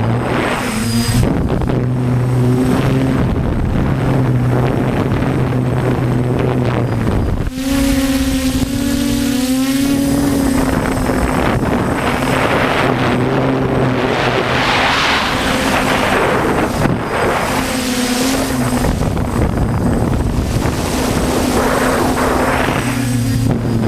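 DJI F450 quadcopter's motors and propellers humming in flight, the pitch wavering as the motor speeds change, with heavy wind noise on the microphone.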